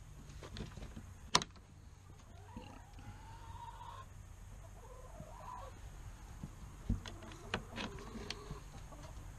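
Hens clucking and making drawn-out, wavering calls, with a sharp click about a second in and a dull knock later as the wooden nest-box lid of the coop is handled.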